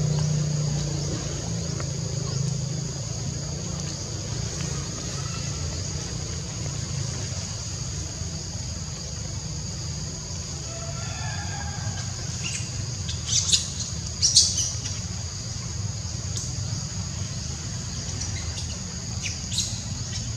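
Forest ambience: a steady high insect drone with a low background rumble. A cluster of short, sharp, high-pitched chirps about two-thirds of the way through, and two more near the end, are the loudest sounds.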